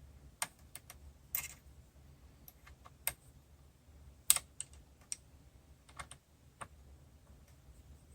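Small irregular metallic clicks and taps from hand-adjusting the steady rest around the workpiece on a Sherline mini lathe, about a dozen spread unevenly, the sharpest a little past halfway, over a faint low hum.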